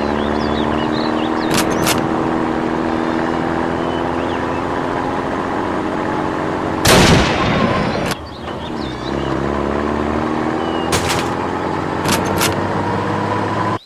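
A vehicle engine running steadily under gunfire: sharp shots a couple of seconds in and again near the end, and one loud blast about halfway through, after which the engine dips briefly and then picks up again.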